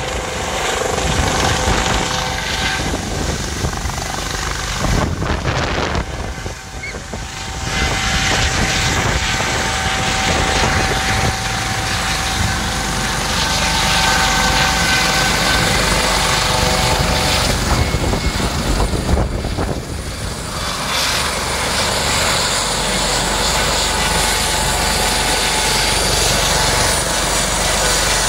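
US Coast Guard MH-65 Dolphin helicopter coming down to land on grass, then running on the ground at close range. A steady whine sits over the rotor and engine noise.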